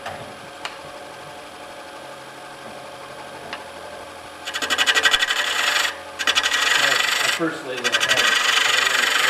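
Wood lathe running, then about halfway in a gouge bites into the spinning wooden bowl blank: loud rasping cutting as curls of shavings peel off, broken twice by brief pauses as the tool lifts.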